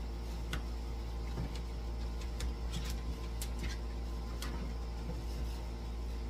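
Steady low electrical hum with a few light, irregular clicks and ticks scattered through it.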